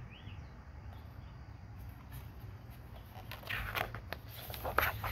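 Quiet outdoor background with a steady low rumble and faint bird chirps near the start, then a few short paper rustles near the end as a picture book's page is handled and turned.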